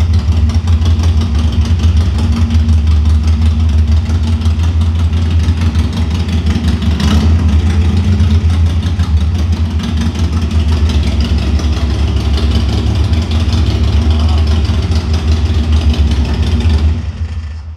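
Harley-Davidson Iron's air-cooled V-twin running through an aftermarket exhaust, idling loud and steady with one brief sharper moment about seven seconds in, then dying away near the end.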